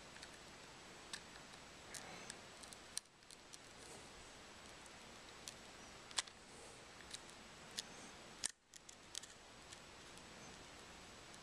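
Faint scattered clicks and small scrapes of a razor blade working under the cracked glass of a Samsung Galaxy S3, prying it off its double-sided tape, over a steady low hiss.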